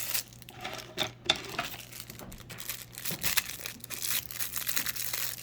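Plastic packaging crinkling and rustling irregularly as fidget toys are handled and unwrapped.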